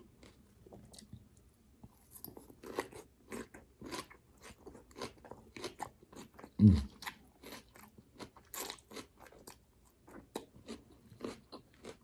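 Close-up crunchy chewing of a mouthful of raw garden salad, crisp crackles coming every half second or so. About halfway through there is one short, louder, low sound that drops in pitch.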